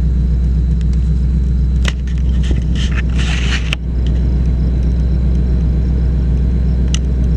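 Car engine idling, a steady low hum heard inside the cabin, with a few small clicks and a brief rustle about three seconds in.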